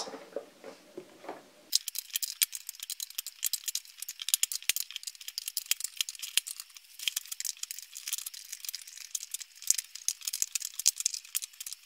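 18650 lithium-ion cells being put one after another into plastic cell holders, making many quick, thin clicks and clinks of the metal cans against the plastic and each other. It starts about two seconds in.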